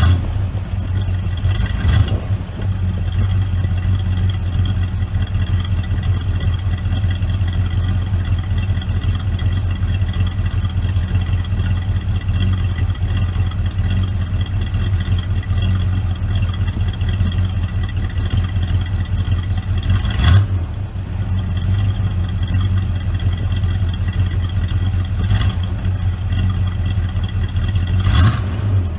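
1970 Oldsmobile Vista Cruiser's 455 Rocket V8 idling steadily on its first start, cold and not yet tuned. It briefly gets louder three times: about two seconds in, about two-thirds of the way through, and near the end.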